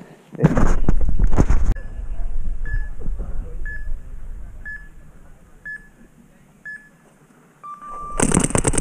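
Wind and handling rumble on the camera microphone, then six short electronic beeps about a second apart and one longer, lower beep, a countdown to the start of a paintball point. Rapid paintball marker fire breaks out right after the long beep, near the end.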